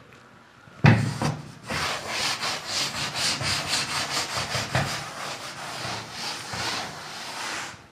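A cloth wiping chalk off a blackboard: quick back-and-forth rubbing strokes. It starts with a bump about a second in and stops just before the end.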